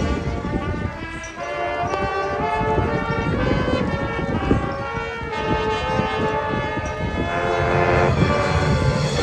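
High school marching band playing: brass holding loud sustained chords that shift every second or two, over drumline percussion.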